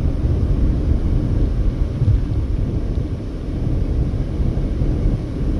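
Steady low rumble of a car driving at highway speed: road and wind noise.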